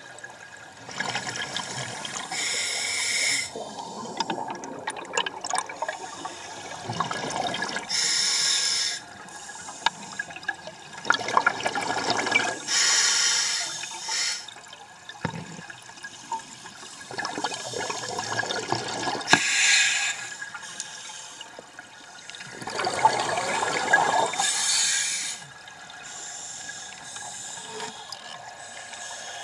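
Scuba diver breathing through a regulator underwater: a hiss on each inhalation alternates with the bubbling rush of exhaled air, about five breaths a few seconds apart.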